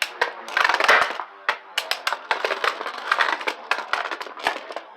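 Beyblade spinning tops, one hand-spun, whirring and scraping across a plastic stadium, with rapid, irregular clacks as they collide and hit the walls.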